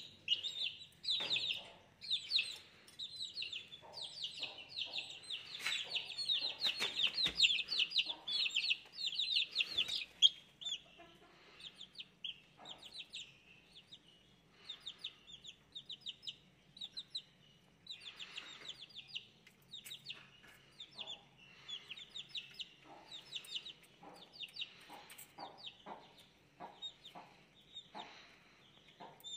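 Young chicks peeping: a rapid run of high, repeated chirps for about the first ten seconds, then sparser peeps with a few short taps in between.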